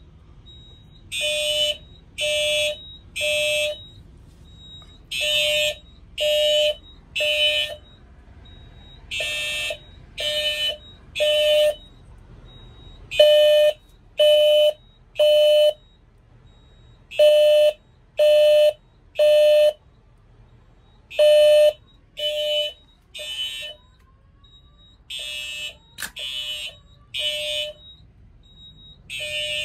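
Simplex 4100ES fire alarm system sounding its evacuation tone in the temporal-3 pattern: three tone pulses about a second apart, then a short pause, repeating. This is the standard building-evacuation signal of a fire alarm in alarm.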